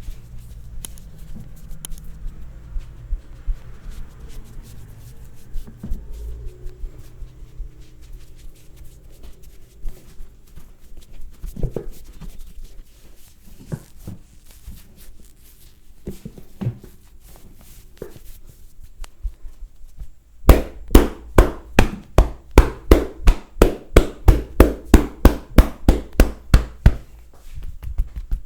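Hand massage strokes: for a while only soft scattered taps and rubbing, then, about two-thirds of the way through, a fast, even run of percussive hand strikes on the body, about four a second, lasting several seconds.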